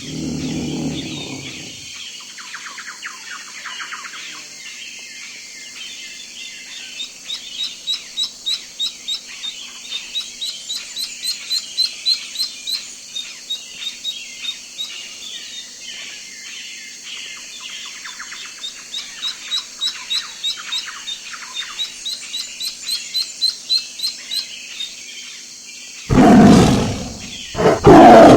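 Songbirds chirping, with two long runs of rapid repeated high notes that build in loudness. Near the end a big cat's loud roar breaks in.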